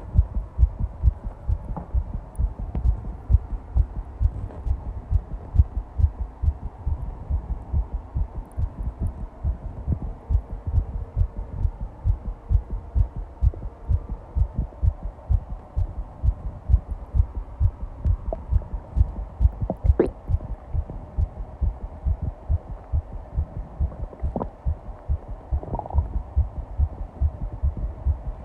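A fast heartbeat, recorded close up: low thuds repeating in a quick, steady rhythm. A few faint brief clicks sound over it, the clearest about two-thirds of the way through.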